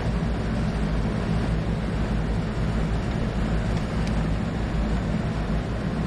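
Carrier rooftop air-conditioning unit running in two-stage cooling: a steady hum from its two compressors under the even rush of its condenser fans.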